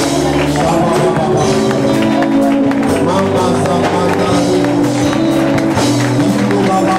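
Loud music with held notes and a steady percussive beat.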